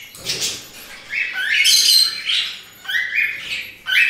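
Cockatiel chick giving a rapid series of raspy begging calls, roughly two a second: a hungry hand-fed chick asking for food.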